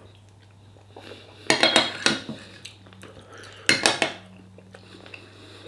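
Metal spoon clinking and scraping against a bowl of food, in two short bursts about two seconds apart.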